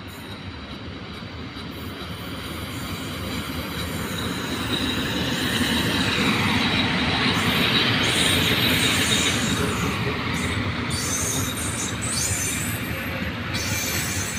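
A train running through a station, growing louder over the first half and staying loud after that, with a high, steady squeal from the wheels on the rails.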